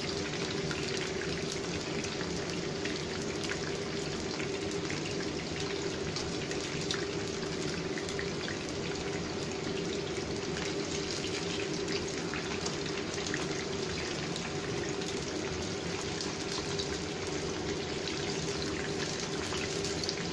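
Sweet potato wedges frying in oil in a nonstick pan on low heat: a steady sizzle with many fine crackles.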